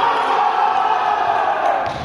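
A long drawn-out cheering shout, held for nearly two seconds and falling slowly in pitch, then cutting off.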